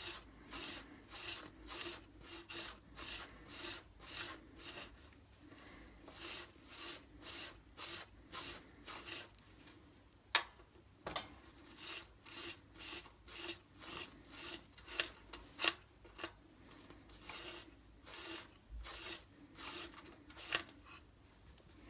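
Maroon Scotch-Brite hand pad rubbed in one direction over a stainless steel watch bracelet, brushing lines into the steel. It makes a faint scratchy stroke about twice a second. There is a short break with a sharp click about ten seconds in.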